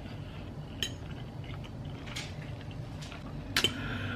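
A metal eating utensil clinking lightly against a dish three times, about a second and a half apart, the last clink the loudest, over a low steady room hum.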